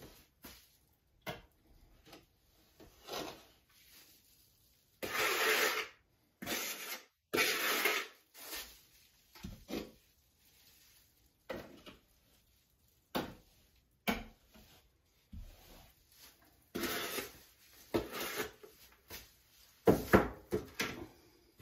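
Flat trowel scraping and smearing thick thinset mortar onto a wall in uneven strokes, with now and then a sharp click or knock as the trowel scoops more thinset from a plastic bucket.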